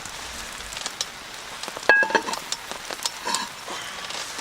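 Metal camp cookware clinking as tuna steaks go onto a frying pan, with one loud ringing clank about two seconds in and lighter clicks after, over a faint sizzle.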